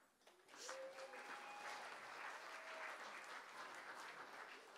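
Wedding guests applauding, starting about half a second in and holding steady.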